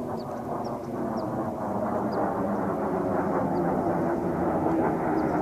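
Distant engine rumble, steady and slowly growing louder, with a few faint high bird chirps over it.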